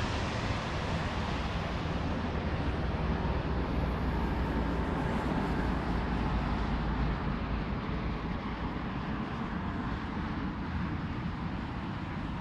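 Jet engines of a Ryanair Boeing 737-800 on landing approach, a steady rumble that slowly fades as the airliner moves away after passing overhead. Road traffic runs underneath, with a lorry passing about halfway through.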